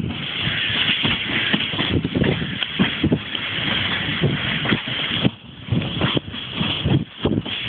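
Passenger train running, heard from inside the carriage: a steady rush of running noise with irregular knocks and clatter from the wheels over rail joints and points. The rush drops briefly twice near the end.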